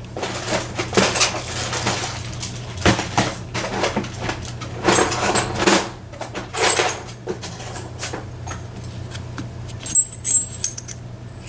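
Small metal tools rattling and clinking as they are rummaged through, in irregular bursts of clatter, with a couple of bright metallic rings near the end.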